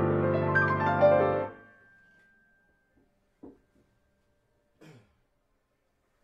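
Grand piano played in a flowing passage that ends about a second and a half in on a chord, which rings away as the notes die. Two faint short sounds follow in the quiet.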